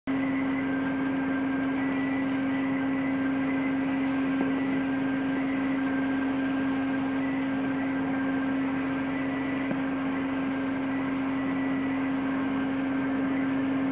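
A ship's onboard machinery running with a steady droning hum that holds one strong low tone.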